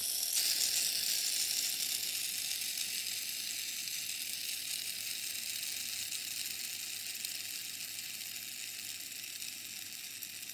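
Steady high-pitched hiss, slowly growing quieter.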